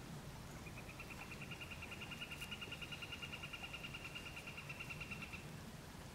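An animal's high, even trill of rapid pulses, about ten a second, starting about a second in and stopping shortly before the end.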